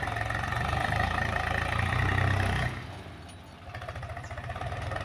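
Heavy diesel engine running steadily with a high whine over its low note. It drops off sharply about halfway through and picks up again about a second later.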